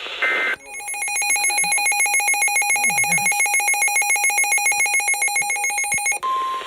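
Tail of a digital data burst, then a weather radio receiver's alarm: a loud, rapidly pulsing beep that sounds when a new warning is received. Near the end it switches to the broadcast's steady single-pitch warning alert tone.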